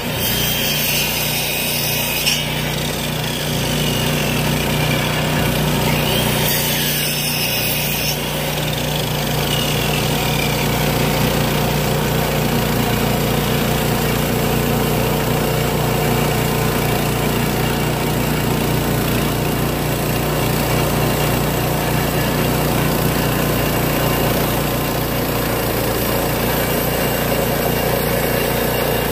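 Timbery M100 portable bandsaw mill running steadily, its small gas engine held at high speed while the band blade cuts lengthwise along a timber as the saw head is pushed down the track.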